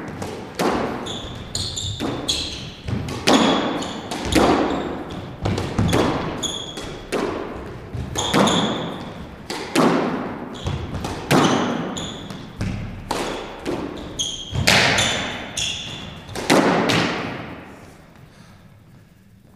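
Squash rally: the ball is struck by racquets and smacks off the court walls about once a second, each hit echoing around the enclosed court, with sneakers squeaking on the hardwood floor between shots. Play stops near the end.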